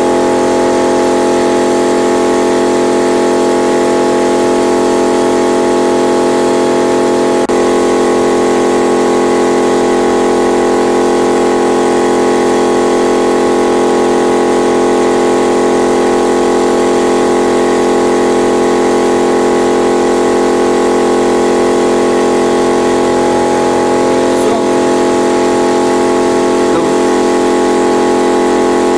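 Yamaha TDM 850 parallel-twin engine idling steadily at an even speed after its timing-chain and valve work.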